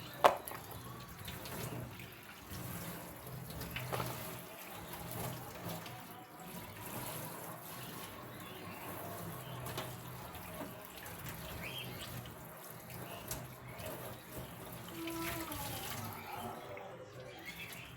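Water running from a tap into a sink, with a sharp knock just after the start and a few lighter clicks.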